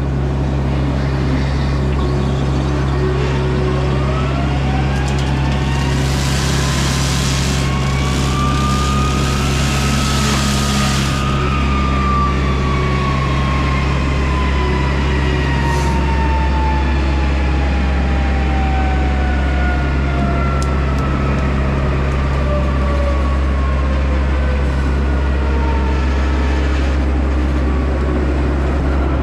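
John Deere 60G excavator running steadily with a Baumalight brush mulcher head working, its whine rising for several seconds and then slowly falling away. Bursts of brush being shredded come a few seconds in.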